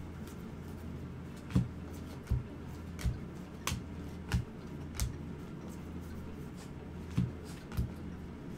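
A stack of baseball trading cards being flipped through by hand, card by card, giving about eight sharp snaps at uneven intervals over a low steady hum.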